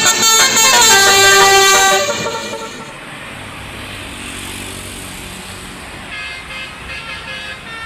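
Basuri 'telolet' multi-tone bus horn playing a quick tune of stepping notes, loud for about two seconds, then stopping and leaving a much lower background noise.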